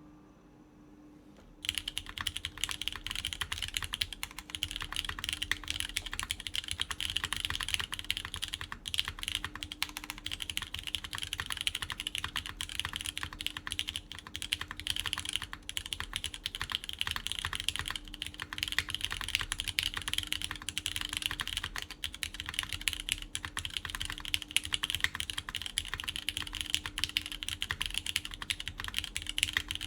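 Continuous fast typing on a Qwertykeys Neo80 Cu mechanical keyboard in its top-mount configuration, with lubed Cherry MX Orange switches on a PEI plate and GMK Carbon keycaps. The typing starts about a second and a half in, after a moment of faint hum.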